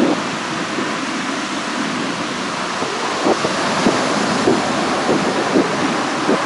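Jet roar from the Blue Impulse formation of Kawasaki T-4 jets flying overhead: a steady rushing noise, with irregular low flutters from about three seconds in.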